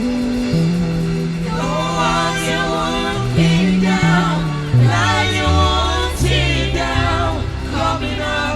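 Gospel worship music with a sustained bass line, and singing voices that come in about a second and a half in.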